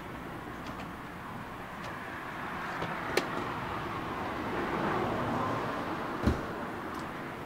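Street traffic running steadily, swelling as a vehicle passes around the middle, with a sharp click about three seconds in and a car door shutting with a thump a little after six seconds in.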